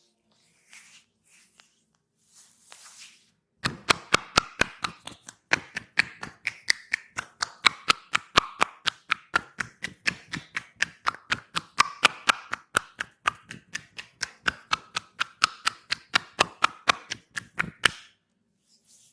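Massage tapping (tapotement): hands slapping the body in a fast, even rhythm, about four sharp slaps a second. It starts about three and a half seconds in and stops suddenly near the end.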